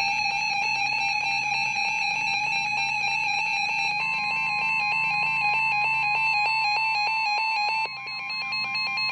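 Weather radio's electronic alert alarm sounding for a severe thunderstorm warning, a rapidly pulsing tone, joined about four seconds in by the NOAA Weather Radio 1050 Hz warning alarm tone, a steady beep; all cut off abruptly just before the voice announcement.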